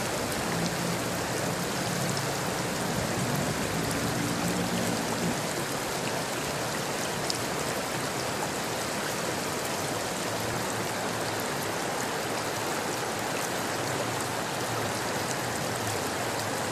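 River water rushing steadily over a fast, choppy current.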